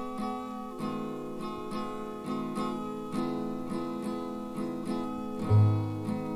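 Acoustic guitars playing the instrumental opening of a song from a 1967 stereo vinyl record, with steady picked notes. Loud, deep bass notes come in about five and a half seconds in.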